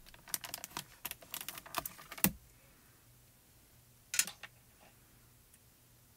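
Quick small clicks and taps of hands working a plastic stamp-positioning platform and a clear acrylic stamp, ending in a sharper knock about two seconds in. A brief second cluster of taps comes a couple of seconds later as the paper die cut is pressed back into place.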